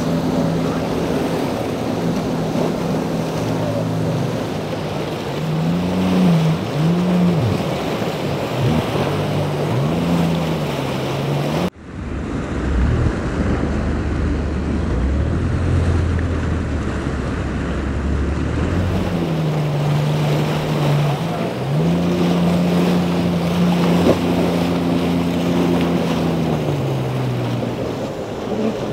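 Powerboat outboard engines running through rough chop, their note rising and falling as the throttle is worked, over the rush of water and wind on the microphone. The sound cuts abruptly about twelve seconds in to a low drone for several seconds, then an engine note that climbs, holds and falls away again.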